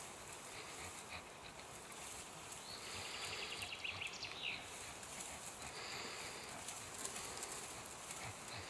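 Pit bull tugging and bouncing on a springpole, its hind paws scuffing and thumping on the dirt, with faint low thuds and scratchy ticks.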